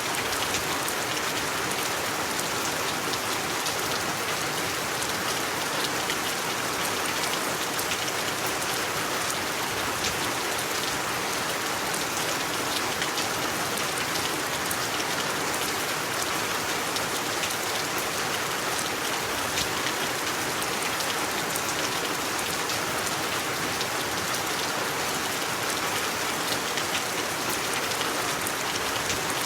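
Steady rain falling on a surface, a dense even hiss with many small drop ticks and no change in intensity.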